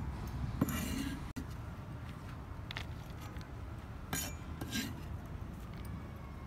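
Cleaver chopping lemongrass stalks on a wooden chopping board, a sharp knock and a short scrape in the first second. About four seconds in, two more knocks and scrapes as the blade sweeps the cut pieces off the board, over a steady low hum.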